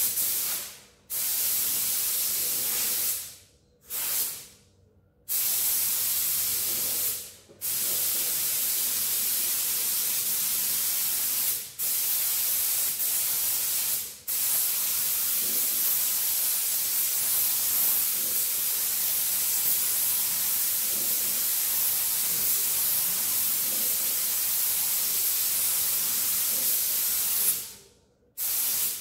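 Gravity-feed paint spray gun spraying gray primer, its compressed air hissing in a few short trigger pulls at first, then in long near-continuous passes with brief breaks. It stops shortly before the end, then gives one short last burst.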